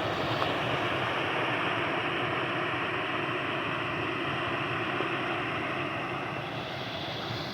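Steady rush of water flowing over a waterfall and rocky creek, easing slightly near the end.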